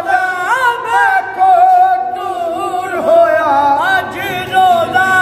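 A young male voice singing a Punjabi devotional song to the Prophet (naat) unaccompanied, holding long notes and ornamenting them with pitch bends and glides.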